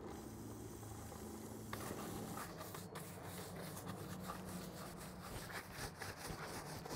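Bristle brush scrubbing the soapy plastic radiator shroud of a dirt bike: faint, quick, irregular brushing strokes that start about two seconds in, over a low steady hum.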